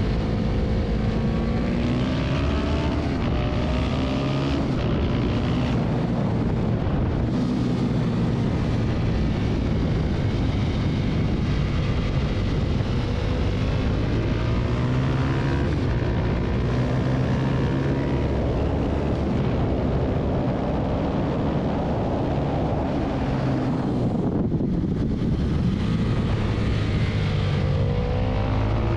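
Husqvarna 701 supermoto's single-cylinder engine running hard around a racetrack, revs climbing and dropping back again and again through gear changes, with wind rushing over the microphone. About 24 seconds in the engine note briefly eases off before climbing again.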